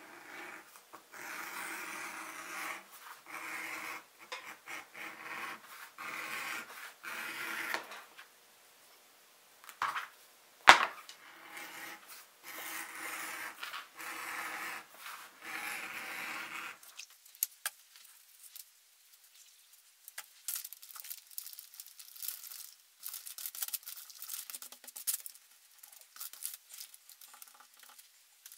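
Hand tools working a strap of thick veg-tan leather: a run of repeated scraping strokes, each about a second long, with one sharp click about ten seconds in. After that come quieter rubbing and small scattered clicks.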